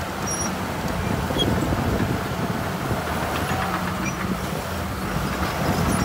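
Diesel engine of heavy earthmoving machinery running steadily, a continuous low rumble and hum.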